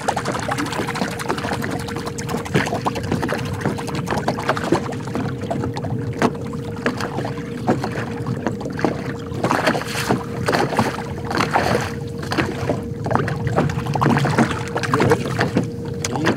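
Lake water lapping and slapping against a fishing boat's hull in short, irregular splashes, with a steady high-pitched hum throughout.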